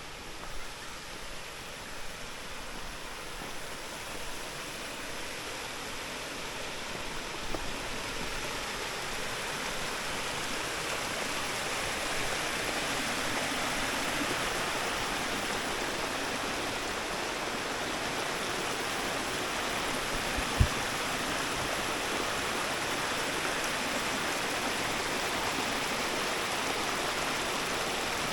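Waterfall water rushing and splashing, a steady noise that grows louder over the first dozen seconds and then holds. A single brief low thump comes about two-thirds of the way through.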